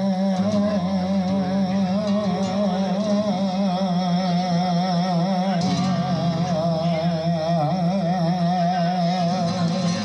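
Flamenco cante: a male singer holding long, melismatic notes with a wide, wavering vibrato.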